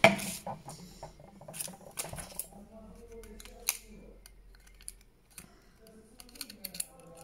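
Sharp clicks and knocks of small plastic parts and a thin metal screwdriver on a hard stone worktop as a Mercedes W203 seat-adjustment switch is taken apart, with a loud knock at the very start and scattered lighter clicks after.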